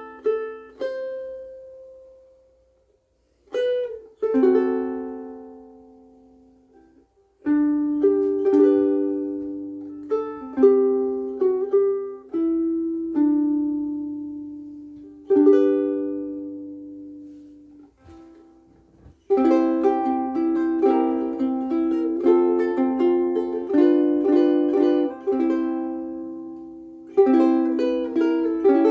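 Mahogany concert ukulele played solo, plucked notes and chords ringing out and dying away, with two short pauses. The playing gets busier and denser about two-thirds of the way through.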